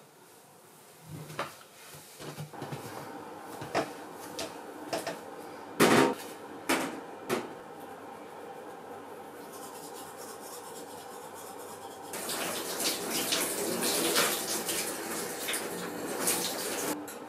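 Dishes clinking and knocking a few times, then about three-quarters of the way in a kitchen tap starts running into the sink and keeps running.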